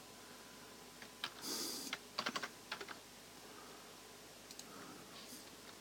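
Faint clicking of computer keyboard keys: a quick cluster of taps about two seconds in, a few more shortly after, and a brief soft rush of noise just before the cluster.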